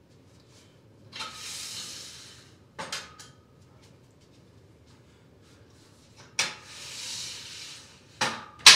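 Metal clanks on a steel power rack, the loudest near the end leaving a short ringing note. Before each group of clanks comes a long breathy hiss lasting about a second and a half, the sound of a hard exhale.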